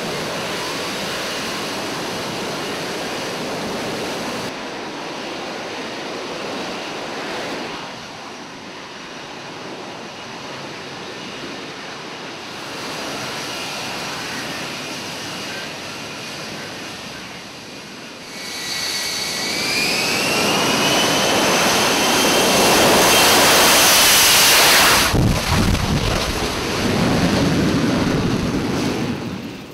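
F-35B Lightning II's single Pratt & Whitney F135 jet engine at high power while the jet hovers on its lift fan and nozzle. Past the middle a whine rises in pitch as the noise grows to its loudest. It breaks off sharply, then swells again briefly near the end.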